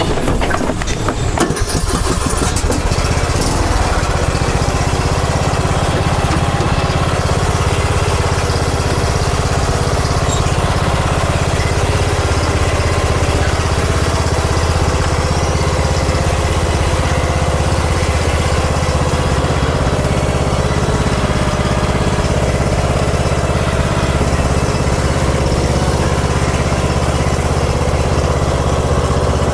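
Riding lawn mower engine starting, uneven for the first couple of seconds, then running steadily.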